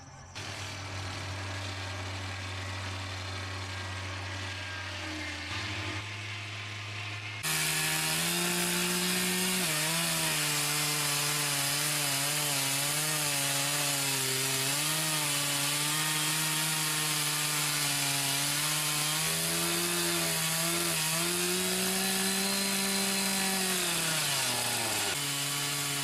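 A sawmill runs with a steady hum for several seconds. Then, louder, a chainsaw engine on a portable log mill cuts through a log, its pitch wavering under load throughout. Near the end its pitch drops and it picks up again.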